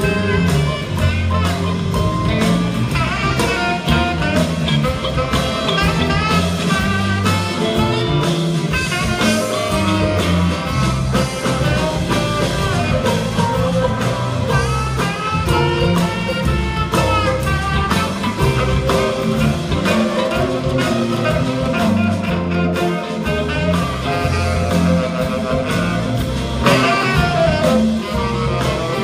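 Live band playing an instrumental passage: drum kit, bass and acoustic guitar with a wavering lead line on top, recorded from the crowd.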